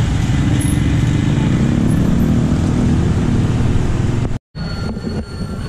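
Dense motorcycle and scooter traffic passing close by, a steady mass of small engines running. It breaks off abruptly near the end. Quieter street sound follows, with a thin, steady high tone.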